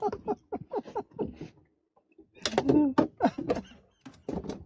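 A man's voice talking or exclaiming in words too unclear to make out, with a short pause about two seconds in.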